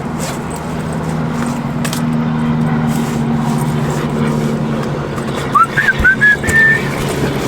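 A car engine idling with a steady low hum. A little over halfway through, a quick string of short, high, rising whistle-like chirps ends in a briefly held note.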